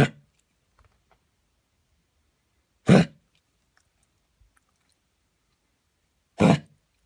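A dog coughing: three short, sharp coughs about three seconds apart, which the owner takes for something stuck in its throat.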